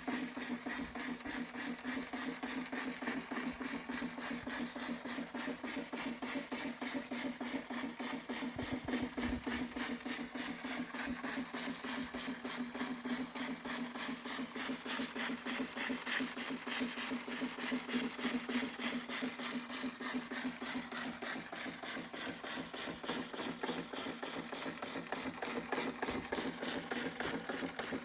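Märklin 4112 toy steam engine running steadily: a fast, even mechanical chatter of its strokes over a constant hiss.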